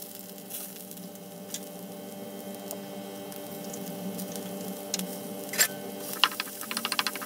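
Chopped vegetables frying in oil in an aluminium kadai with a faint sizzle, then from about six seconds in a wooden spatula scraping and knocking against the pan in quick strokes, several a second, as they are stirred.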